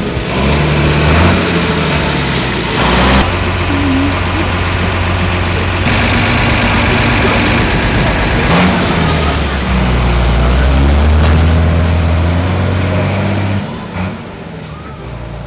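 Bus engine running and pulling away, its note rising and falling as it moves through the gears, with short hisses. It drops away about thirteen seconds in.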